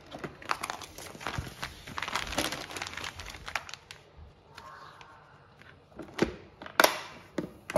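Plastic vacuum-seal bag crinkling as it is handled and laid over the sealing strip of a countertop vacuum sealer, with a few sharp clicks near the end as the sealer's lid is brought down.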